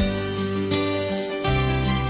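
Instrumental background music: a melody of plucked notes starting one after another every fraction of a second, each ringing on, with no singing.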